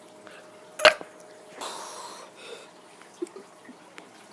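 A child's short, sharp burp about a second in, the loudest sound here, followed by a brief breathy exhale and a few faint clicks.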